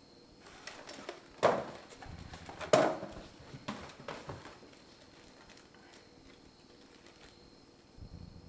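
Foam takeaway containers and other small items set down on a wooden coffee table, with handling rustles: two louder knocks about a second and a half and almost three seconds in, a few lighter taps after, then quiet handling.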